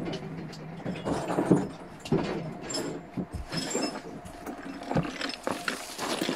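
Irregular metallic clicking and clattering of hand tools and sockets being handled and sorted through.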